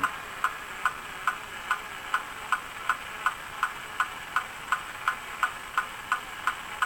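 Battery-operated 1950s Etco Marshal Wild Bill tin toy's mechanism clicking steadily as it walks, about two and a half clicks a second, over a faint motor hum.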